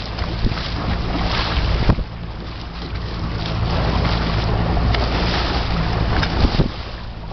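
Boat engine running steadily under way, a low even hum, with wind gusting on the microphone over it.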